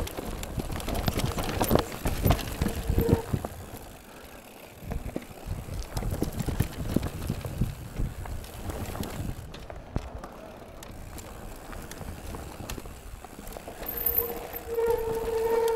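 Mountain bike rolling over a rough trail: the frame and parts rattle and knock, with rushing noise, busiest in the first few seconds. A short high squeal comes near the end.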